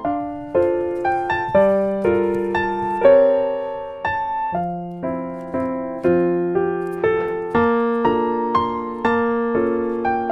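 Background piano music: a light melody of struck notes over chords, each note fading after it is played, at a steady pace of about two notes a second.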